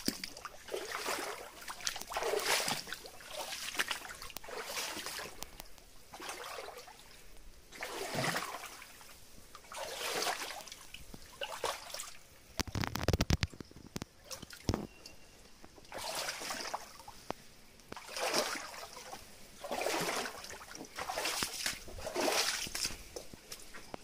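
Footsteps splashing and sloshing through a shallow, stony stream, one step every second or two. A brief low rumble comes about halfway through.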